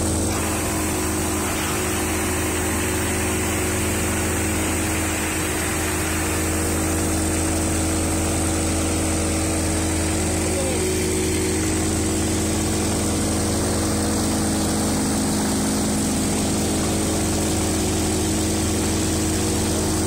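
Diesel-engined Ritlee 225 hydraulic-feed wood chipper running steadily while chipping, wood chips blowing out of its discharge chute.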